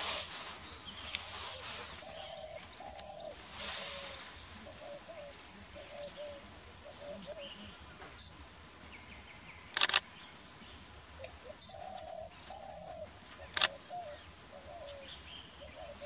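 Soft, short, low calls from a flock of bar-headed geese feeding, over a steady high insect drone. Two sharp clicks about ten seconds in and again three and a half seconds later.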